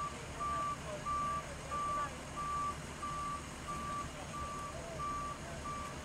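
Emergency vehicle's backup alarm beeping at a single steady pitch, about one and a half beeps a second, stopping near the end, over a low vehicle rumble.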